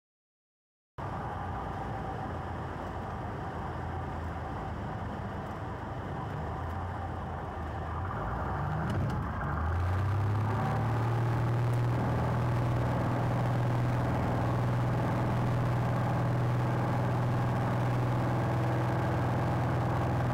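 Cessna 170B's six-cylinder Continental engine and propeller heard from inside the cabin, first running at reduced power, then rising in pitch about eight to ten seconds in as the throttle is opened to full power, and holding steady and louder after that.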